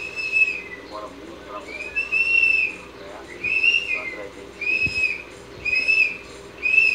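A high whistled note repeated about once a second, six times, each note about half a second long and rising slightly before falling away.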